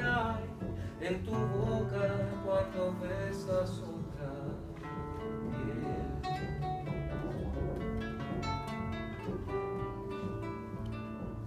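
Live band playing an instrumental passage without vocals: a plucked-string melody of separate notes over bass and chords.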